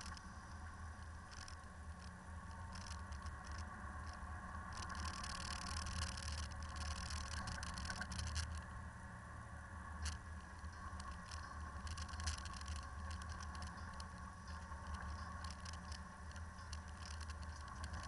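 Land Rover driving along a snowy gravel mountain track: a steady low engine drone, with scattered clicking and crackling from the tyres on packed snow and gravel and from small rattles.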